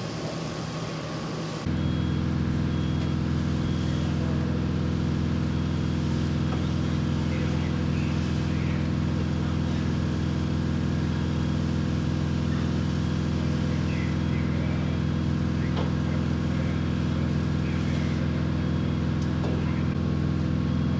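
Fire truck's diesel engine running with a steady low drone, louder from about two seconds in. A faint high beep repeats in an even on-off pattern above it.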